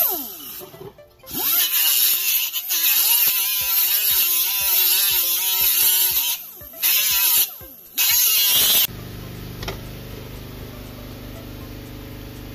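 Small hand-held rotary tool grinding the steel of a car's upper control arm, its motor pitch wavering under load. It stops briefly twice and cuts off about nine seconds in.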